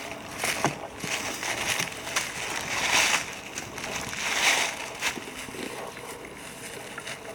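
Footsteps rustling through dry fallen leaves, irregular, with two louder swells about three and four and a half seconds in.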